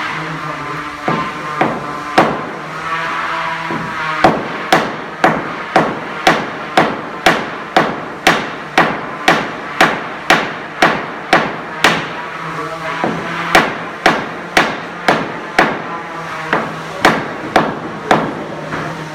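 Wooden mallet striking a boat's wooden keel in steady blows, about two a second, with a short pause a little past the middle. The blows drive the keel down onto its bed of mastic.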